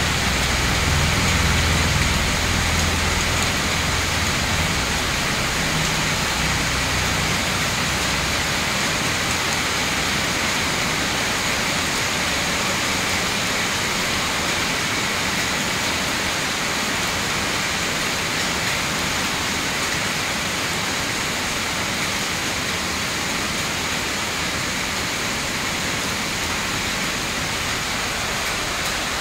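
Heavy rain pouring steadily onto a paved courtyard and the surrounding leaves, a dense, even hiss. A low rumble lies beneath it at first and fades out about eight seconds in.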